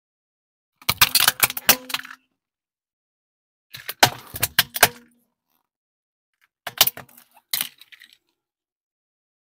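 Hollow plastic action figure cracking and snapping under a car tyre on asphalt. The sound comes in three separate bursts of sharp cracks, with silence between them.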